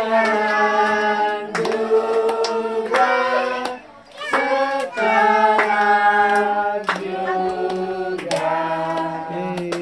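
A group of children and adults singing a birthday song together, with hands clapping along. The singing holds long notes and breaks off briefly about four seconds in.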